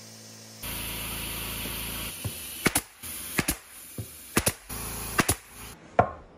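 Pneumatic brad nailer firing several times, each shot a sharp crack, mostly in quick doubles, over a steady mechanical hum. A final loud knock comes near the end.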